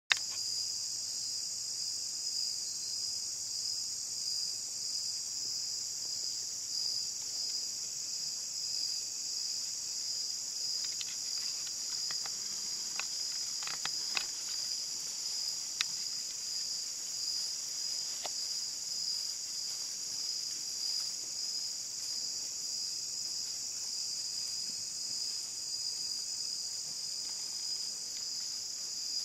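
Evening insect chorus in woodland, a steady high-pitched chirring with a fast even pulse, with a few faint clicks and snaps near the middle.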